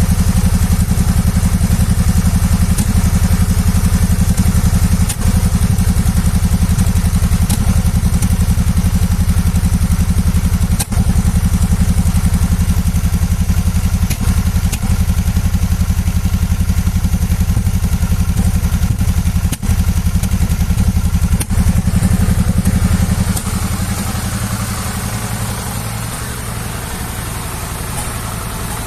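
2014 Suzuki V-Strom 650's V-twin engine idling evenly, without popping, now that the cracked air-valve hoses on the air box have been replaced. Over the last few seconds it runs a little quieter.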